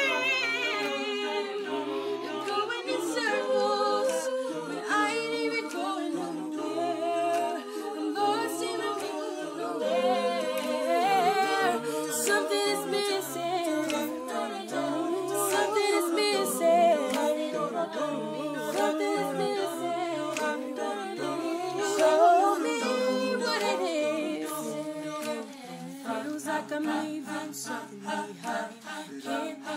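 Mixed-voice a cappella group singing in harmony: a solo voice over backing voices and a bass line sung in short, repeated notes. Near the end it drops quieter into quicker repeated notes.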